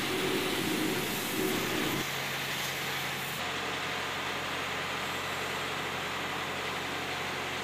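Steady running noise of car-wash equipment: a machine hum with a hiss over it. The highest part of the hiss drops away about three and a half seconds in.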